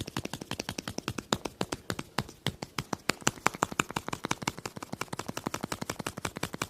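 A rapid, uneven run of sharp taps, roughly eight to ten a second, some much louder than others.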